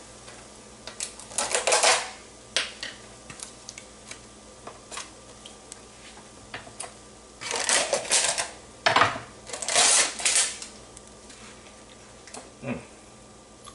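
Plastic bag of shaved Parmesan cheese being handled and opened: crinkling rustles in a few short bursts, the loudest a little past the middle, with scattered small clicks and taps between them.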